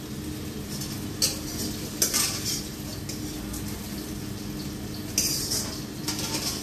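A long metal spoon scraping and clinking against a wok and a plate as fried potatoes and carrots are scooped out: short scrapes about a second in, around two seconds in, and again five to six seconds in, over a steady hum.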